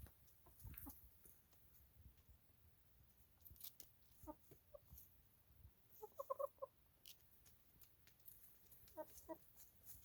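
Hens clucking softly in short bursts: a few notes about four seconds in, a quick run around six seconds and another pair near the end, with faint clicks between.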